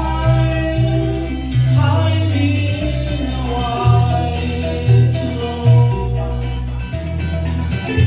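Live keroncong ensemble music: a singer over plucked strings, with a strong bass line stepping from note to note.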